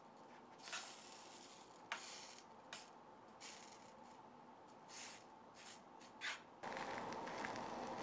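Faint short scrapes and handling noises as butter is put from a plastic tub into a steel frying pan and a slice of bread is set down in it. A steady faint hiss sets in near the end.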